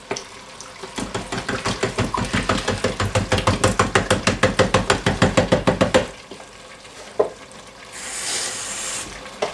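Passata glugging out of a carton into the stainless inner pot of an Instant Pot: a fast, even run of gulps, about eight a second, for about five seconds, then it stops. A short hiss comes near the end.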